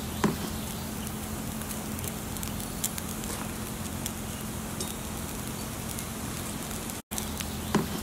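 Vegetables sizzling on a charcoal grill over hot briquettes, a steady hiss with scattered small crackles and a few sharper clicks.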